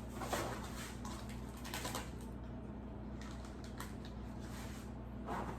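A spoon stirring rice in a pot: a few soft, scattered scrapes and light taps over a low steady hum.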